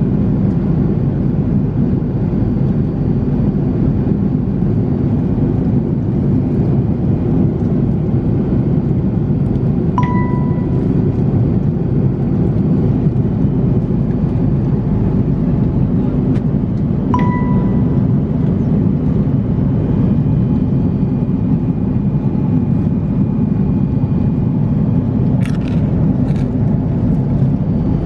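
Steady low drone of an Airbus A340-600's cabin in flight. A single-tone cabin chime sounds twice, about seven seconds apart, near the middle. A few light clicks come near the end.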